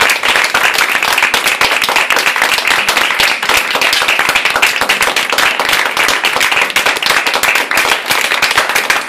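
Audience clapping loudly and steadily, a dense patter of many hands.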